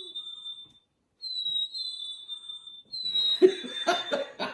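Chickadee 'fee-bee' song from squeezed plush toy birds, three times in a row: a clear whistle stepping down from a higher note to a slightly lower one. Laughter and children's voices join in during the last second or so.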